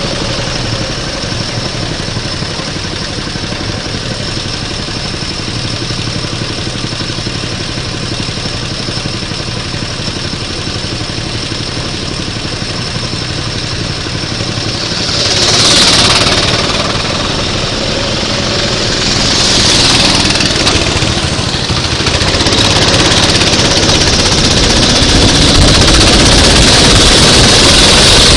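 Racing go-kart engines running steadily, swelling louder twice around the middle and rising again toward the end.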